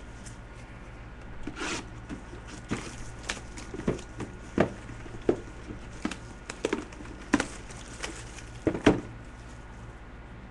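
Hands opening and handling a mini helmet box: irregular taps, clicks and rustles of packaging, over a steady low hum.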